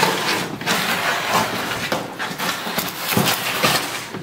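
Plastic dog carrier with a wire-grid door being gripped and moved, rattling with repeated knocks and scrapes.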